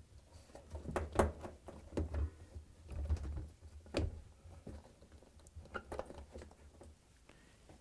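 Hands working the washer's rubber door boot seal: scattered light knocks, clicks and rubbing, with a low rumble that dies away near the end.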